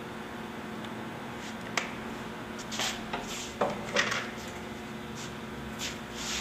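Spatula and plastic ink tub being handled at a screen-printing press: a few sharp knocks and short scrapes as ink is scooped out and the tub is set down, the loudest about four seconds in. A steady electrical hum runs underneath.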